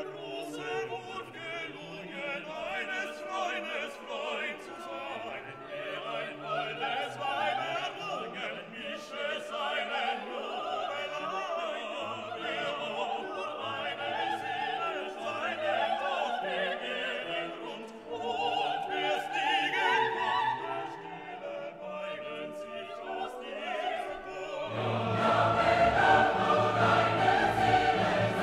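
Classical background music with operatic singing voices over an orchestra, swelling fuller and louder about three-quarters of the way through.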